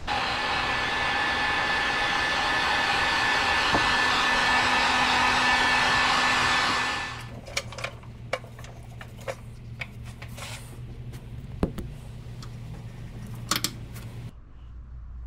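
Heat gun blowing steadily for about seven seconds, shrinking clear heat-shrink tubing over a number label on a spark plug wire, with a faint steady whistle in its airflow. It cuts off, and a scatter of sharp clicks and light knocks follows as plug wires are handled and pushed onto the coil pack's towers.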